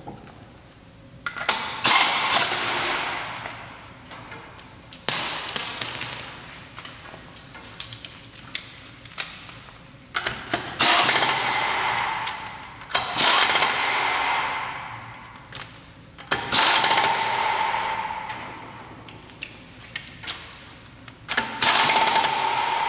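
Pneumatic impact wrench running the wheel bolts of a VW Polo's rear wheel in, in about six separate rattling bursts of one to two seconds each, each cutting in suddenly and fading away.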